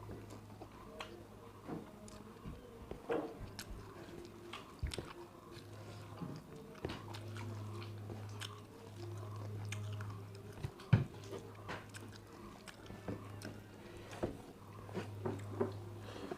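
People chewing and biting food close to the microphone, with many small clicks and crunches scattered through, over a steady low hum.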